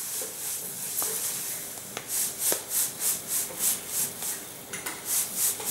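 Granulated sugar shaken into a plastic bowl of salt in quick rhythmic pulses of hiss, about four a second, after a few light clicks.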